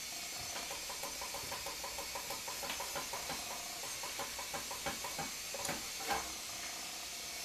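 Whisk stirring thick cornmeal mush in a metal saucepan, clicking against the pot in a quick, even rhythm, with a few louder knocks near the end. A steady hiss runs underneath.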